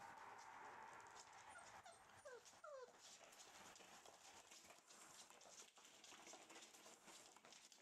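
Rough collie puppies at play: two short whimpers falling in pitch about two and a half seconds in, over light clicking of claws and toys on a wooden floor.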